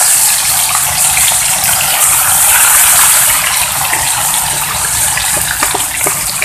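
Small wader fish and shrimp deep-frying in hot oil in a small pan: a steady sizzle with many scattered crackles and pops.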